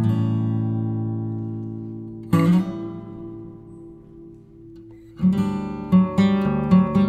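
Background music on acoustic guitar: strummed chords that ring and fade, then about five seconds in a quicker, rhythmic strumming pattern.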